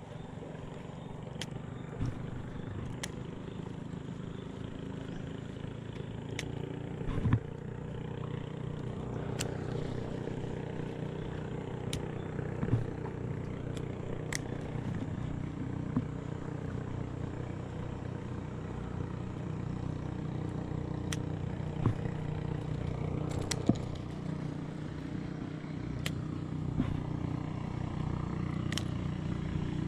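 Small boat engine running steadily, with scattered sharp clicks and knocks over it.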